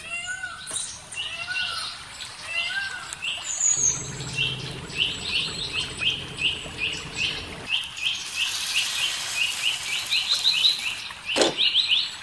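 Birds chirping: one bird repeats a short, falling chirp about three times a second, with a few other bird calls in the first few seconds. A single sharp click sounds near the end.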